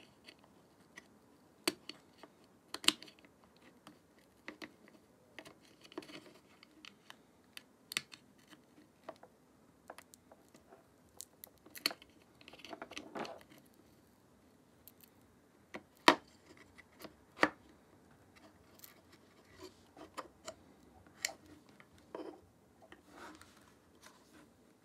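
Irregular small clicks and taps of a precision screwdriver working a tiny screw in the plastic and metal rear screen assembly of a Nikon Z50 camera, with a short scraping stretch about halfway through and another near the end.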